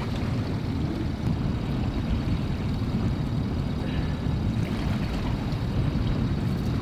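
Wind buffeting the microphone in a steady low rumble, over the wash of choppy sea water around a small open boat.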